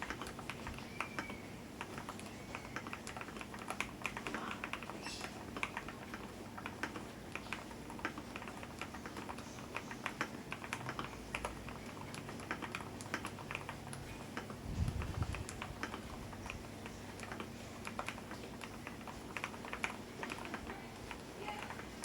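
Typing on a Keydous NJ80 custom mechanical keyboard: a steady run of quick, irregular key clacks, with a brief low thump about two-thirds of the way through.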